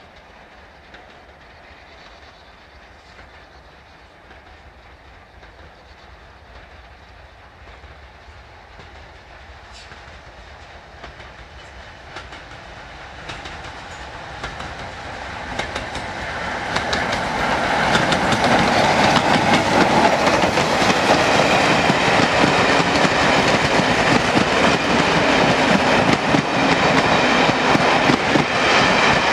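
Steam locomotive hauling a train of coaches, approaching and then passing close by: faint at first, it grows steadily louder from about halfway through and stays loud as the coaches roll past, their wheels ticking over the rails.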